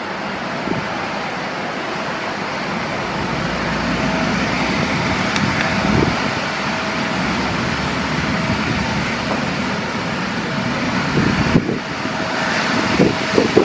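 Twin turbofan engines of an Embraer E175 jet running at taxi power: a steady rushing roar with a faint steady whine, growing louder as the aircraft taxis toward the listener.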